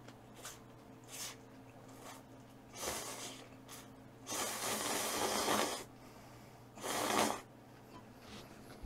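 Close-up eating sounds of a person eating instant ramen: a string of short breathy mouth noises and, midway, a louder one lasting about a second and a half.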